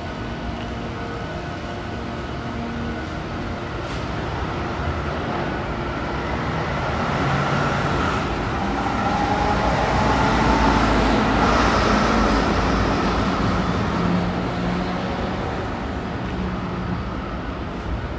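Road traffic going by, a steady rush of passing vehicles that builds to its loudest about halfway through and then eases off.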